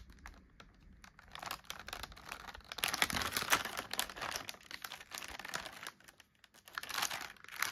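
Crinkly plastic wrapper of a blind-bag vinyl toy crackling and rustling in the hands as it is turned over, with a short lull about six seconds in.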